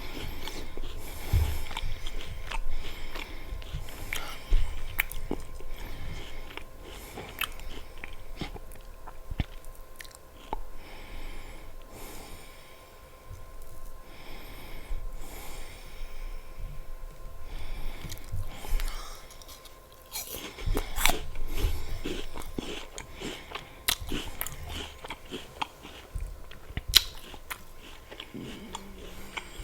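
Close-miked biting and chewing of apple slices with peanut butter: crisp crunches and irregular mouth clicks throughout.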